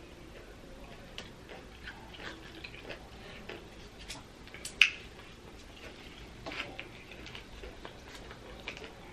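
Plastic wrapper of a pickled radish being handled: scattered small clicks and crinkles, with one sharp click a little under five seconds in.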